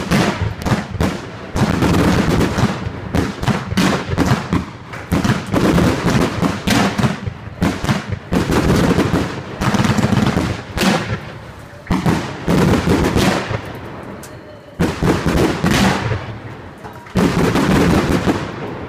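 Aerial fireworks bursting in a dense run of overlapping bangs, with a short lull about three-quarters of the way through, then a few last bangs that fade out near the end.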